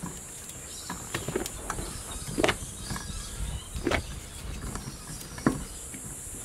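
Ratchet socket wrench tightening the wheel nuts: a few sharp metal clicks at uneven gaps, the louder ones about every second and a half. A steady high-pitched hiss runs underneath.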